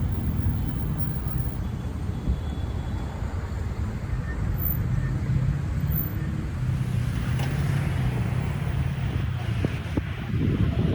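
Steady low rumble of road vehicle noise, like a car running on the road.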